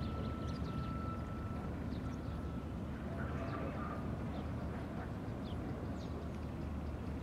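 Passenger train heard from afar as it crosses a railway bridge: a steady low rumble of the train on the track. A thin steady high tone sounds during the first two seconds or so, and faint bird chirps come through over the rumble.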